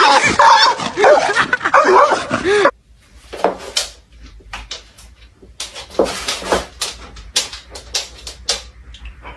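A dog whining and whimpering in repeated rising-and-falling cries. These cut off abruptly under three seconds in, leaving scattered short knocks and a few brief yips.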